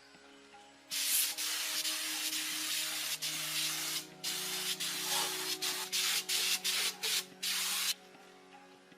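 Compressed-air spray gun hissing: one long spray of about three seconds, then a run of short on-off bursts.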